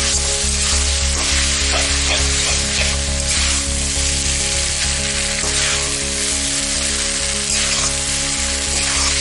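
Vegetable chow mein noodles sizzling and frying in a hot wok on high flame while being tossed and stirred with a metal utensil, with irregular scrapes against the pan. A steady low hum runs underneath.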